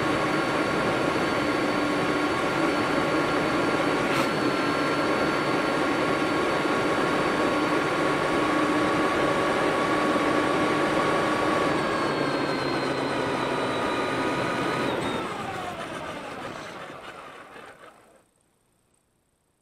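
Traxxas Summit RC truck's electric motor and drivetrain whining steadily over gravel-road tyre noise, carried by the truck's onboard FPV video link. About twelve seconds in the whine slowly drops in pitch. It then fades away to near silence near the end as the video link is lost.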